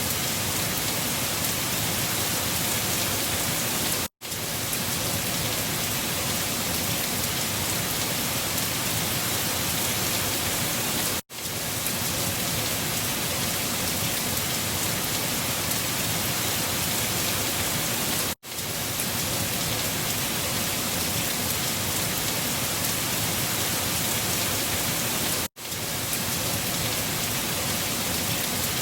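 Steady, even rushing of a storm recording with no gusts or rises. The sound cuts out abruptly for a split second about every seven seconds, four times, where a short recording loops.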